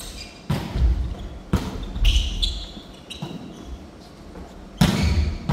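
A volleyball being passed around in a large gymnasium: four sharp hollow smacks of the ball off players' forearms and hands, one every second or two, the last the loudest.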